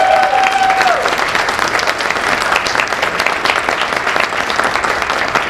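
Audience applauding steadily, many hands clapping, with one voice's long held cheer that ends about a second in.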